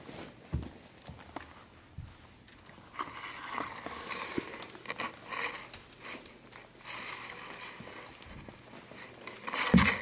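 Lego plastic pieces clicking and rustling as the toy models are handled and moved about, in scattered small clicks and short crinkling scrapes.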